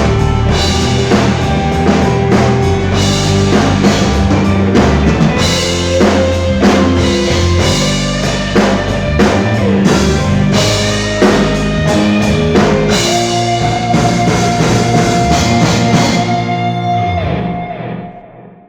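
Rock band playing live with drum kit, electric guitar and bass, steady drum hits driving the song. About 16 seconds in the band stops on a final held chord that rings on and fades out.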